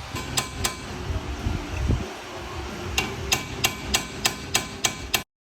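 A Nissan 350Z's worn front upper control arm bushing, knocking as the removed arm is worked back and forth: sharp clacks, a few at first, then a steady run of about three a second. The clacks come from the free play in the worn bushing. The sound cuts off suddenly near the end.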